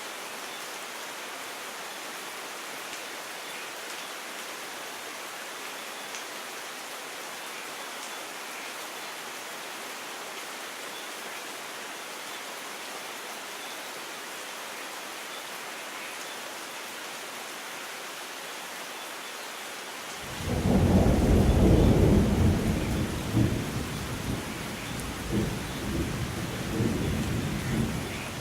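Steady rain falling. About twenty seconds in, a loud low rumble of thunder breaks in abruptly and rolls on, swelling and fading.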